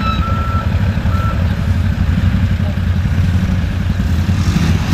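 An ATV's and a backhoe loader's engines running with a steady low rumble. In the first second or so there are a few short, high electronic beeps from a reversing alarm.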